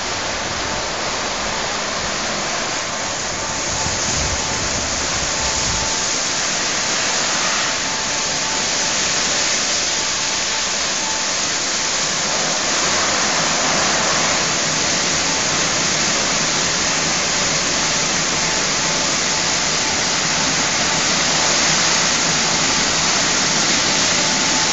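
Christ Centus automatic rollover car wash at work: rotating brushes and water jets spraying a car, giving a steady rushing hiss of water with a faint steady tone underneath. The rush grows slightly louder a few seconds in.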